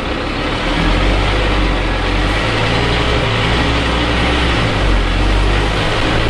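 Inside a Scania N310UA bus: its rear-mounted engine runs with a steady low drone under a broad, even cabin noise.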